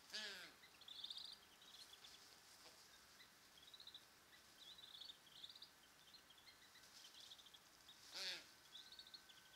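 Faint birdsong: a small bird's short high chirps repeating throughout, with two louder, harsher bird calls, one at the very start and one about eight seconds in.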